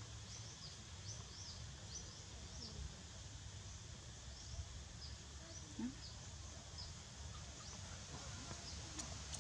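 Faint background birdsong: a small bird repeating short, high, falling chirps every few tenths of a second, over a low steady rumble.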